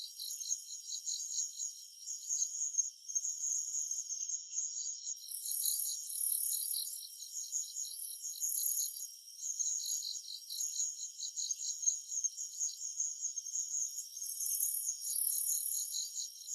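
Summer-forest insect chorus: several insects calling at once in layered, high, rapidly pulsing trills. The highest-pitched caller stops for about a second about four seconds in, then resumes.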